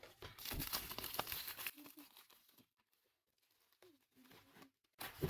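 Packaging crinkling and rustling while a keyboard is unboxed, stopping after under two seconds; after a quiet stretch the rustling starts again near the end.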